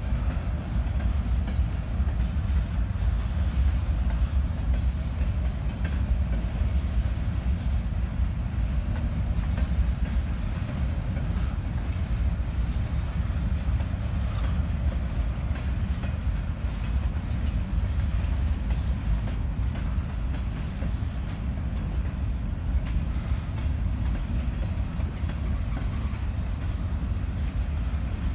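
Empty covered hopper cars of a freight train rolling past: a steady low rumble of steel wheels on the rails, with faint scattered clicks.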